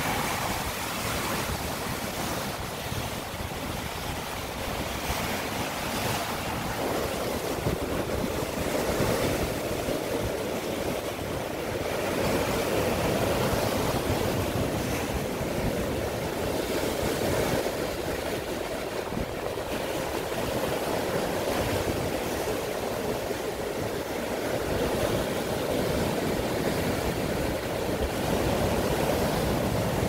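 Sea surf breaking and crashing over rocks: a continuous rush of foaming water that swells and eases with each incoming wave.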